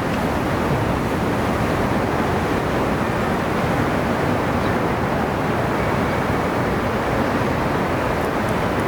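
Sea surf on the shore: a steady, even rushing with no single wave break standing out.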